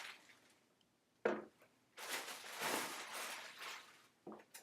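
Packaging being handled: a single knock about a second in, then a couple of seconds of rustling, and a few light taps near the end.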